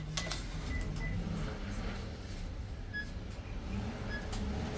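Indoor background of a low steady hum with faint distant voices, a few clicks, and several short high electronic beeps.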